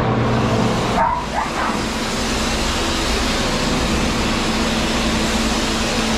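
Pet grooming dryer blowing steadily at half speed, its rush of air filling out sharply about a second in as it comes on. At that moment a dog gives a brief whimpering yelp.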